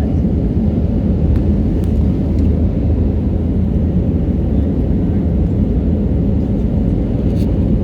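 Steady low rumble of engine and airflow noise inside the cabin of an Airbus A320 in flight, with a few faint clicks.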